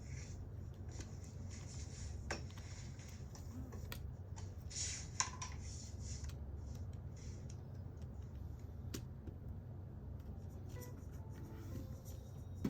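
Quiet room tone: a steady low hum with faint scattered clicks and soft rustling, one brief rustle standing out about five seconds in.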